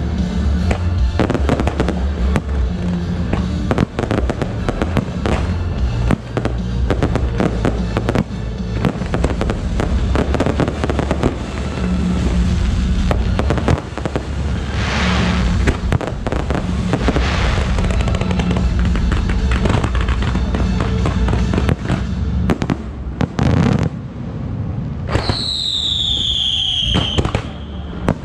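Fireworks display: a dense, continuous barrage of shells bursting and crackling in quick succession, over background music. Near the end a whistling firework gives a tone that falls in pitch for about two seconds.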